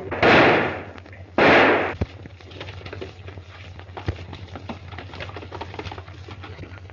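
Two gunshots about a second apart, each a loud crack with a fading tail, then faint scattered knocks over a steady low hum.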